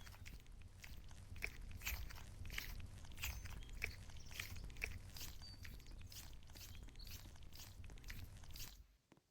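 A squishy foam toy squeezed over and over close to the microphone, giving soft crackling squishes about two or three times a second over a low handling rumble. It stops suddenly shortly before the end.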